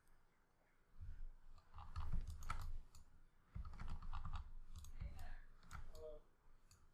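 Irregular clicking of a computer mouse and keyboard, with dull low knocks beneath.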